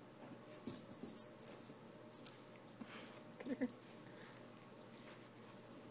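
Small dog's collar tags jingling in quick clinking bursts as she rolls and wriggles on her back on the carpet, with a short grunt from the dog about three and a half seconds in.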